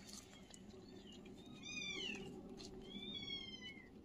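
A kitten meowing twice in high, thin calls: a short arched one about one and a half seconds in, then a longer one about three seconds in that falls in pitch at its end.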